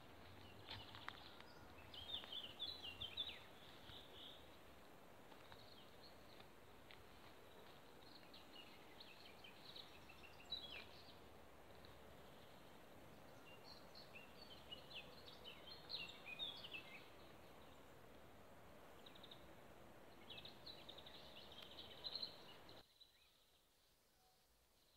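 Small birds chirping and twittering in short scattered bursts over a faint background hiss of open-air ambience. Near the end the sound drops away to near silence.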